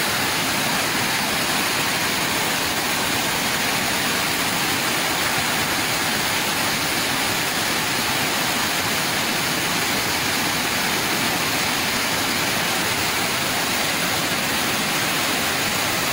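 Muddy floodwater rushing fast, a steady, unbroken rush of water, with heavy rain falling.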